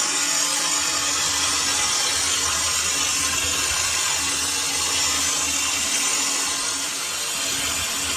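Metal lathe running, with a steady hissing scrape of work on the turning water-pump shaft.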